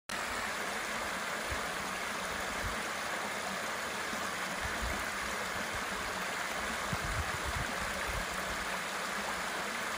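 Small creek running over stepped rock ledges in a low cascade: a steady sound of splashing, flowing water.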